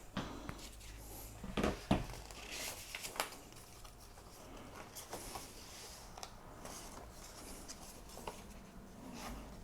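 Quiet room tone with a few faint taps and handling sounds, the sharpest a pair of light clicks about two seconds in.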